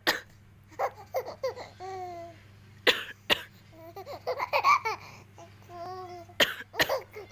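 A woman coughing in short, sharp coughs, mostly in pairs, with bouts of voiced laughter in between.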